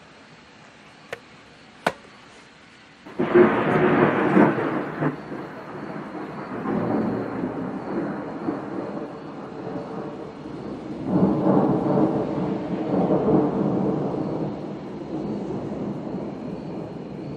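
Thunder: two sharp clicks, then about three seconds in a loud peal breaks suddenly and rolls on, swelling again around eleven seconds before slowly dying away.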